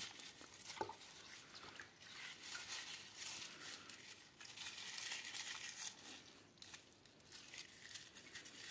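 A hand swishing and squeezing water-soaked dry leaves in a bowl of water: faint, irregular splashing and rustling.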